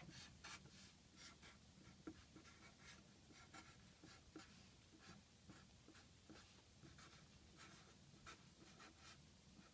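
Faint scratching of a marker pen writing on a clipboard: a string of short, quick strokes.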